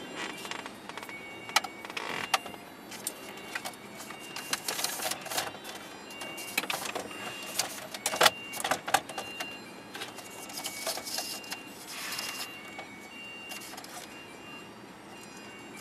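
Hands handling a plastic dash trim panel while fitting a small aux input port into a hole in it: a run of irregular plastic clicks, taps and short scrapes.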